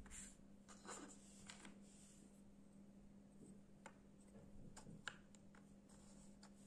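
Faint, scattered clicks and taps of wooden jigsaw puzzle pieces being picked up and pressed into place on a wooden tabletop, with a steady low hum underneath.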